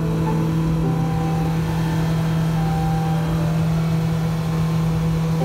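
A boat's 115 hp outboard motor running steadily at speed, a constant hum under the rush of wind and water from the wake.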